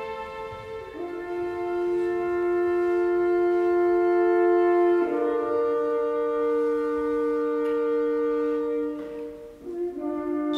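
Orchestral music for a contemporary classical work: slow held chords in the brass and winds that shift to new pitches about a second in, around halfway, and again near the end.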